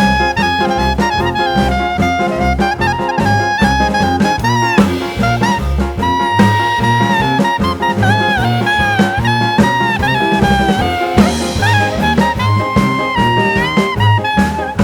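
Jazz music in a swing style, with a brass or saxophone melody over a walking bass line and drum kit.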